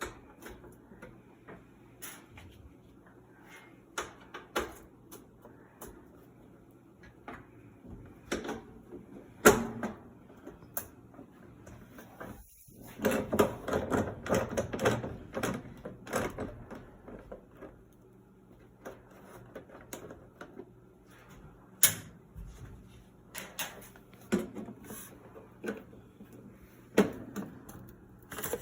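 Socket wrench working the screws out of a washing machine's sheet-metal panel: scattered clicks and metal clinks, with a busier stretch of rapid clicking and rattling about halfway through and again near the end.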